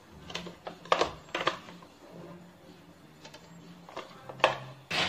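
A metal spoon clinking and scraping against a plastic chopper bowl and a stainless steel mixing bowl while ground chicken is scooped out: a string of irregular sharp clicks and knocks.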